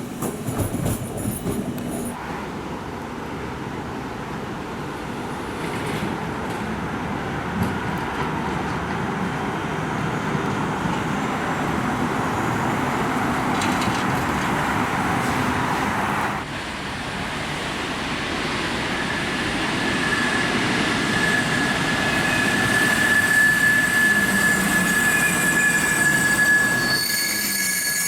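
A train rolling slowly through the station, with a steady high wheel squeal setting in about two-thirds of the way through.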